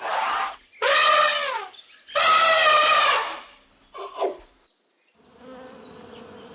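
Elephant trumpeting: three loud brassy calls and a short fourth one, each falling in pitch at the end. From about five seconds in, a fainter steady buzzing begins.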